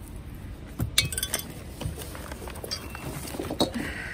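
Hard metal parts clinking and knocking together as they are handled. There is a cluster of sharp clinks about a second in and more between two and a half and three and a half seconds in.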